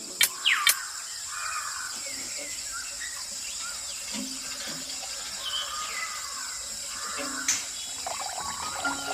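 Water trickling and splashing steadily, with a few sharp clicks.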